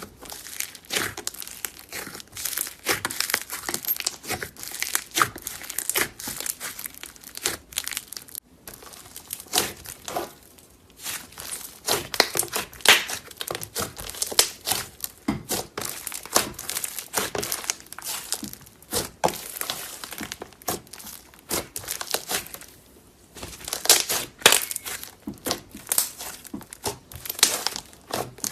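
Slime being squeezed and worked by hand, giving a dense run of crackling, popping clicks, with brief lulls about eight and twenty-three seconds in.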